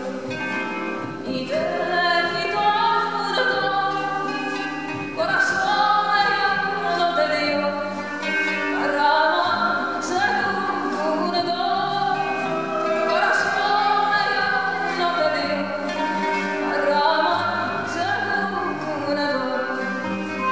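Dance music with a singing voice holding long notes that slide up and down over a steady low drone, with a few sharp percussion hits.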